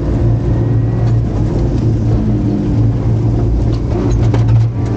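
Rally car engine heard from inside the cabin, running at a fairly steady pitch through the stage, with a few short clicks near the end.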